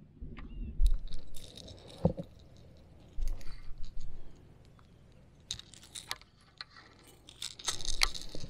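Irregular clicks, clatters and rustling of small hard objects being handled, in several short clusters with quiet gaps between.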